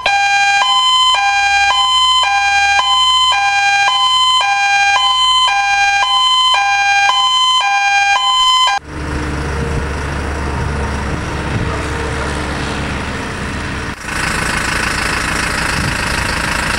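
Star 12-185 fire engine's two-tone warning siren, switching back and forth between a high and a low note, which cuts off suddenly about nine seconds in. The truck's engine then runs steadily.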